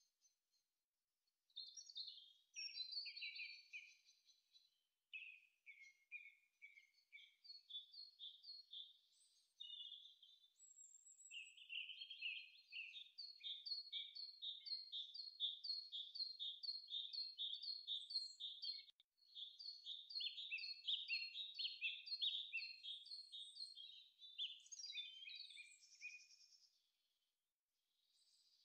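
Faint birdsong: high chirping notes, many in quick repeated runs, starting about a second and a half in and dying away near the end.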